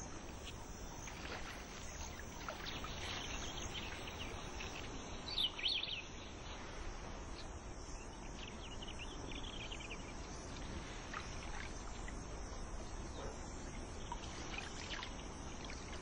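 Riverside ambience: a steady wash of water with scattered short high bird chirps, and a brief louder flurry of chirps about five and a half seconds in.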